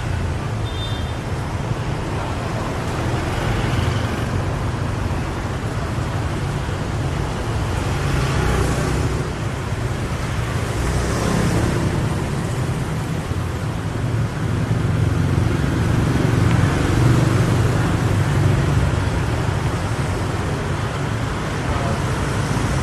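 Steady street traffic noise: a continuous low rumble of passing road vehicles.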